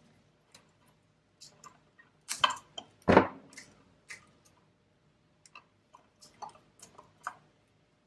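Electrical tape being wrapped around the sides of a new electrical outlet over its terminal screws: scattered small clicks and crinkles of the tape and plastic receptacle being handled, with a louder cluster of tape and handling noise about two to three seconds in, its biggest a single thump.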